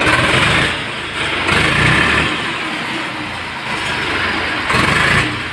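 Swaraj 735 tractor's three-cylinder diesel engine running, freshly rebuilt after a seized piston was replaced, surging louder three times between steadier running.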